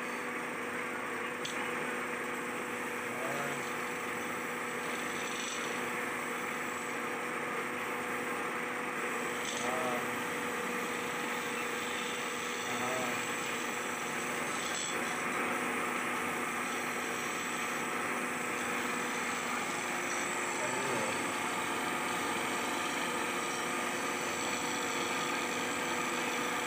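Electric wood lathe running steadily with a hum while a long hand chisel is held against the spinning wooden cot leg, giving a continuous rough scraping hiss of wood being turned.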